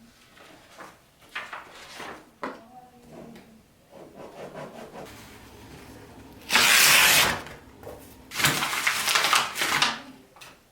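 Sound effects: scattered light knocks and rubbing for several seconds, then two loud rushing noise bursts, the first short, about six and a half seconds in, the second longer, about eight and a half seconds in.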